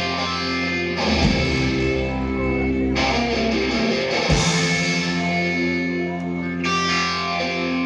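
Live rock band playing: electric guitar chords ringing over bass guitar and drums, with a few sharp drum hits.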